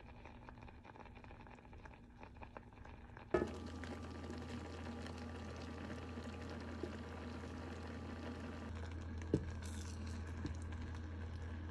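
Strawberry jam boiling in a pot, bubbling and popping. About three seconds in the sound jumps louder with a sharp knock, and a steady low hum runs under the bubbling from then on.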